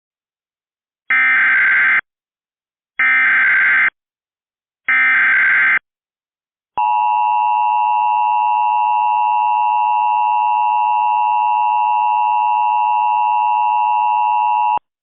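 Emergency Alert System header: three short bursts of SAME digital data screech about a second apart, then the two-tone EAS attention signal (853 and 960 Hz) held steady for about eight seconds before it cuts off. This is the start of a new alert, with its voice message to follow.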